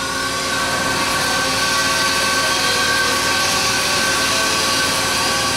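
Steady factory-floor machinery noise: an even hiss with several steady tones held under it, growing a little louder in the first second.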